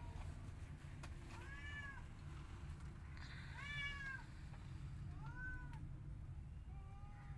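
Kitten meowing repeatedly: about five short, high meows, each rising then falling in pitch, one every second and a half or so.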